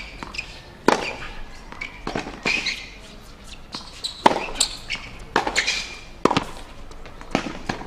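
Tennis rally on a hard court: sharp racket-on-ball hits and ball bounces, a knock every second or so, the loudest about four seconds in.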